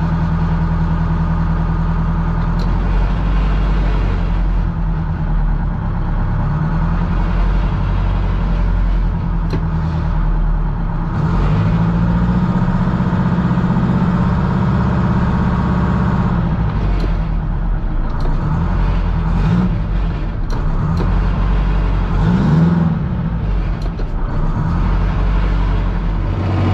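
Boat's inboard diesel engine running under way, heard from the wheelhouse; its speed rises and falls several times as the throttle lever is worked, with a wavering rise and fall near the end.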